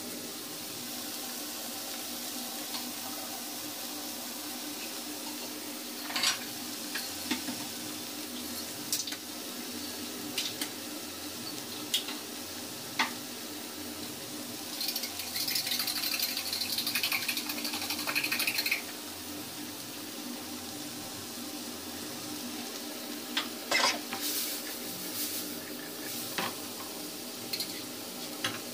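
Diced vegetables frying with a steady sizzle in a nonstick pan on a gas stove, with scattered sharp clicks and knocks against the pan. About halfway through, the sizzle grows louder and denser for a few seconds, and there is a quick run of knocks near the end.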